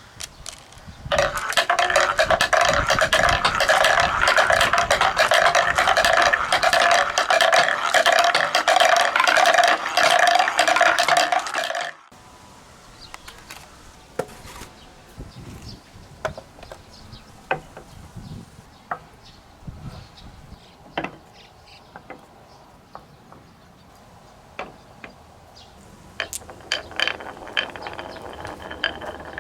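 Many glass marbles rolling and clattering together down wooden marble run tracks, a dense continuous rattle of clicks. It stops abruptly after about ten seconds, leaving scattered single clicks of a few marbles, and the clatter builds up again near the end.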